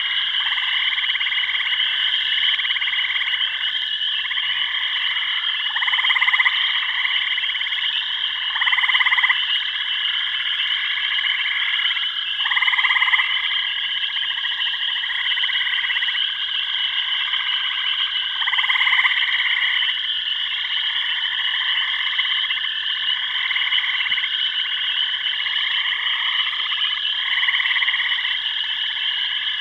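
Tropical frog chorus: a steady high trilling under overlapping croaking calls that repeat every second or two, with a few louder calls standing out.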